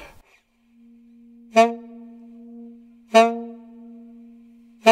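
A 1950s alto saxophone holds a soft low note, hit about every one and a half seconds by a sudden loud swell that drops back at once, three times in all, the last right at the end. These are air pushes: sharp diaphragm accents with no tongue, a very fast crescendo that returns to the soft starting note as quickly as possible.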